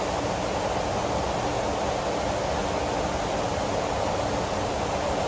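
Heavy rain falling steadily, an even, unbroken hiss of a downpour.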